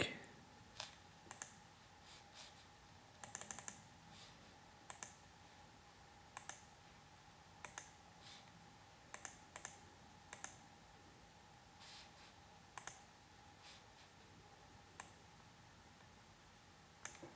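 Near silence broken by faint, irregular clicks, singly and in short runs of two to four, roughly once a second, over a faint steady hum.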